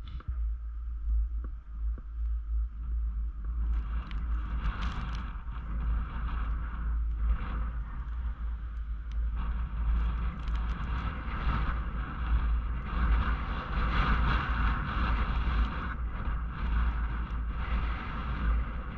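Wind buffeting the microphone of a rider on a moving fixed-grip chairlift, a steady low rumble with a rushing hiss that grows louder about four seconds in, and a few faint clicks.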